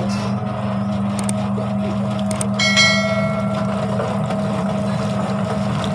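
Ginger and turmeric peeling machine running with a steady motor hum, water running through its stainless steel drum. A little under three seconds in, a knock on the stainless drum rings like a bell and fades over about half a second, as rhizomes are loaded in.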